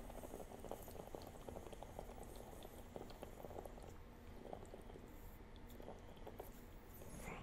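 Water bubbling in a Cloudious9 vaporizer as someone draws through its glass mouthpiece: a fast run of soft little pops that thins out after about four seconds.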